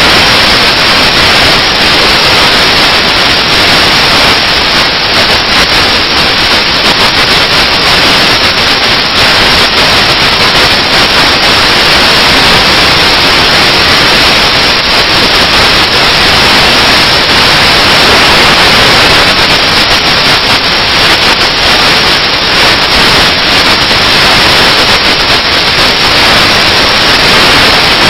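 Loud, steady static hiss that covers everything, with no other sound to be picked out.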